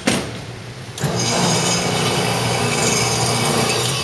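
Shooting-range electric target carrier running, drawing the paper target back up the lane with a steady mechanical whir and rattle that starts about a second in. A single sharp knock comes right at the start.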